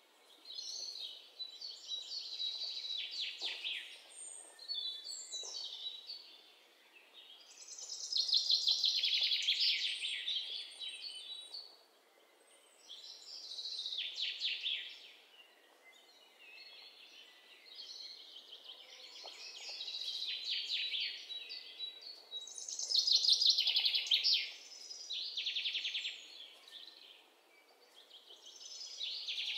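Birds singing: high-pitched trilling phrases, each a quick run of notes lasting a second or two, coming again every few seconds, over a faint steady hiss.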